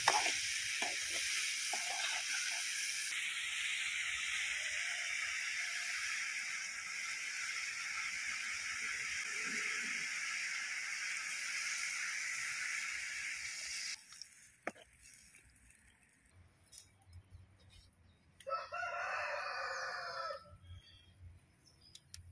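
Chopped bottle gourd frying in a steel kadai over a wood fire, with a steady sizzle that cuts off abruptly about two-thirds of the way through. Later a rooster crows once, for about two seconds.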